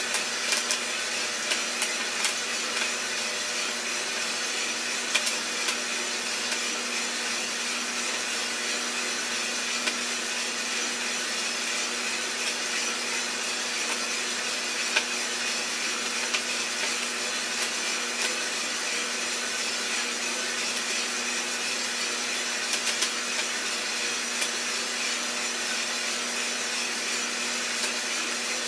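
Iroster 600 coffee roaster running steadily with a constant motor hum and fan hiss, with scattered sharp pops from the roasting beans cracking.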